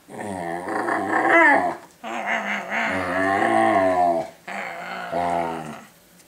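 Rough collie puppy moaning as it is rubbed, in three long drawn-out moans that waver up and down in pitch, with short breaks between them.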